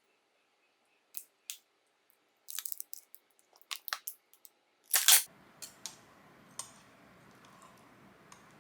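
A series of sharp clicks and knocks from handling kitchen items, the loudest about five seconds in, followed by a steady low hum that carries on to the end.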